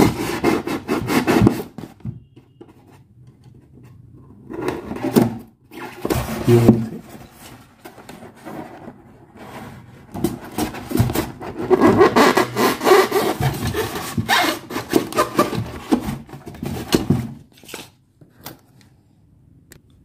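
Polystyrene foam (thermocol) being cut and rubbed: rough scraping strokes in bursts, thickest from about ten to seventeen seconds, as a metal heat sink with fans is pressed into the cut opening in the foam box.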